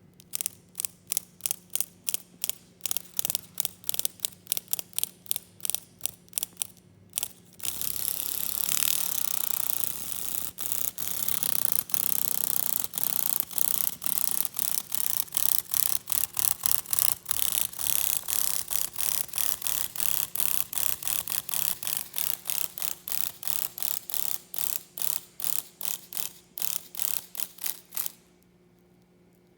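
Cicada buzzing loudly in rapid pulses, about four a second, which merge into a continuous buzz for a couple of seconds about eight seconds in, then pulse again until it cuts off suddenly near the end. This is the distress buzz of a cicada under attack by a praying mantis.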